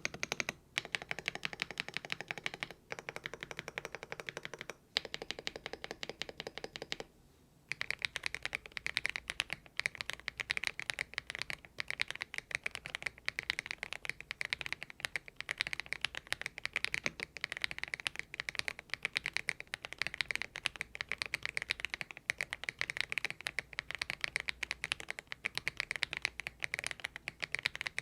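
Fast, continuous typing on a Thinkway TV108 full-size mechanical keyboard fitted with stock, unlubricated Kailh Box Aurora Ice Cream switches: many keystrokes a second. The typing breaks off briefly a few times in the first seconds, with a short silence about seven seconds in.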